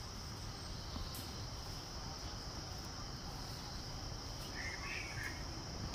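Steady high-pitched drone of forest insects, with low rustling and handling noise underneath.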